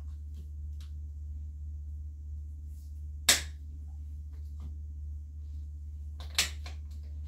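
Scissors snipping through antler reishi (Ganoderma multipileum) stems: two sharp snaps, one about three seconds in and another near the end, with a few fainter clicks, over a steady low hum.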